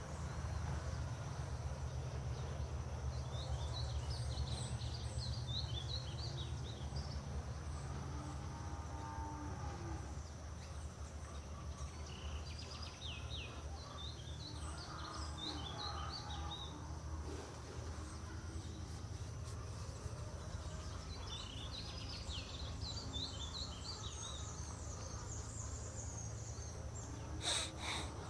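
Bird and insect ambience: a steady high insect drone over a low, even rumble, with three spells of rapid high chirping from small birds. A short sharp click comes near the end.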